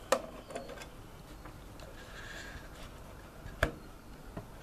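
A metal screwdriver clicking against the back-panel screws and metal case of an MFJ-945E antenna tuner: a sharp click at the start, a faint scrape about two seconds in, and another click about three and a half seconds in.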